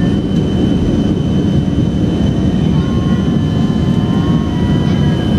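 Jet airliner's engines at takeoff thrust, heard from inside the passenger cabin during the takeoff roll: a loud, steady deep rumble with a constant high whine over it.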